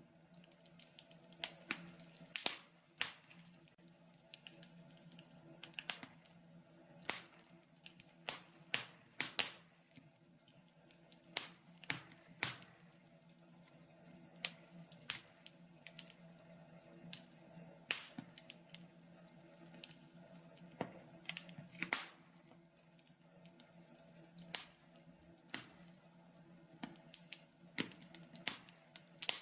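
Wood fire in a fireplace crackling, with irregular sharp pops and snaps about once or twice a second, over a faint steady hum.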